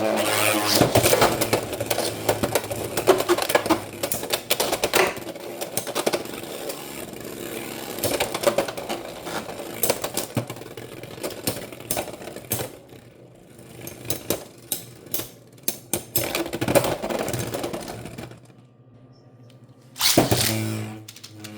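Beyblade X spinning tops clashing in a plastic stadium: a fast, uneven stream of clicks and knocks that dies away about 18 seconds in. About two seconds later a launcher whirs up with a rising tone as the next top is ripped off.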